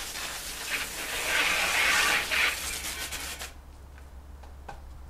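Garden hose spraying water onto a muddy mountain bike: a steady hiss of water striking the frame and tyres, loudest in the middle, that cuts off suddenly about three and a half seconds in.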